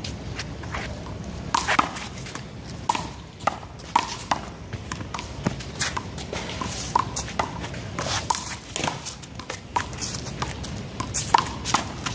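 Rubber handball rally in one-wall handball: the ball is hit by hand and smacks off the wall and the pavement in a string of sharp, irregular slaps.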